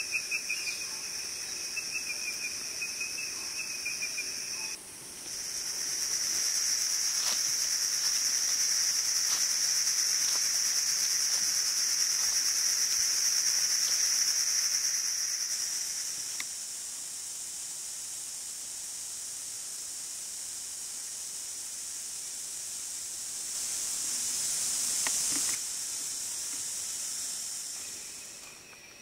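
Rainforest insect chorus: steady, high-pitched shrilling and trilling of insects. It changes abruptly about five seconds in and again later, then fades near the end.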